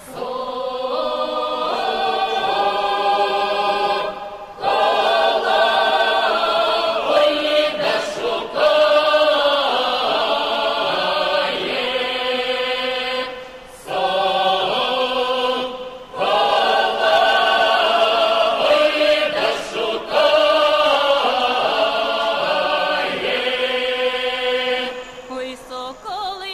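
Folk choir singing in harmony, several voices holding long notes with vibrato in drawn-out phrases separated by brief breaths.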